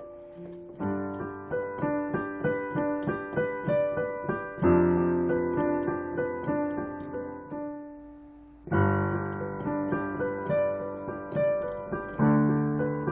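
Piano playing a gentle piece, a melody over chords, with notes struck a few times a second and ringing out; louder chords come in about a third of the way through and again after a brief quieter dip about two-thirds in.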